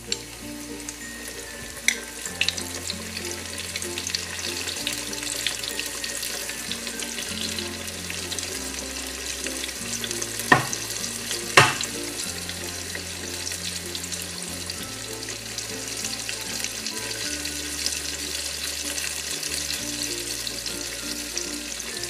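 Flour-coated chicken pieces deep-frying in hot oil, a steady crackling sizzle, with a few sharp clicks, the loudest two in the middle.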